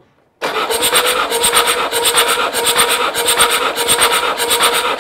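Mercedes five-cylinder turbo diesel engine cranking over on its starter motor for a compression test on cylinder five, without starting. A steady starter whine runs under a rhythmic pulsing of the compression strokes, beginning about half a second in.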